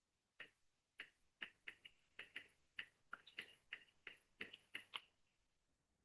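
Faint, irregular computer clicking, about fifteen quick clicks over some four and a half seconds, stopping about five seconds in. These are the keys or mouse being worked to start playback of a song.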